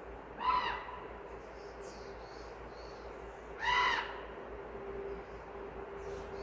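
A bird calling twice: two short, ringing calls about three seconds apart, each arching up and down in pitch, over a steady background hiss.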